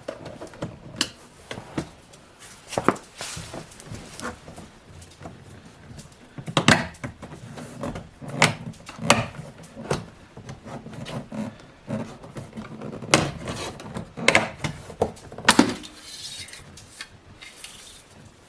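A plastic interior trim panel on a BMW E90 door being pried off with panel-pulling tools: the tools scrape and rub, and the retaining clips give irregular sharp clicks and snaps as they let go, several of them loud.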